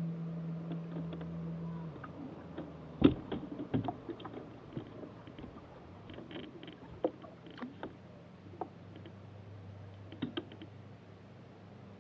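Clicks and knocks of spinning reels and rod handling on a bass boat's deck, the loudest a sharp knock about three seconds in, over the steady hum of an electric trolling motor that cuts out about two seconds in.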